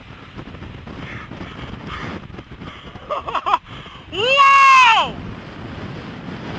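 Strong wind from a tornado rushing over the microphone as a steady roar. About three seconds in come short high cries, then one loud high-pitched human yell that rises and falls over about a second.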